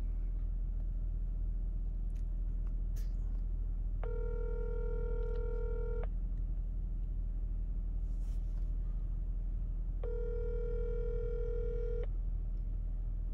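Telephone ringback tone heard through a cell phone's earpiece: two rings, each about two seconds long, starting about six seconds apart, while the call goes unanswered. A steady low hum runs underneath.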